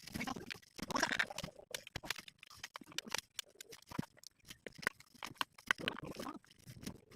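Farm animal sounds with irregular crunching and clicking.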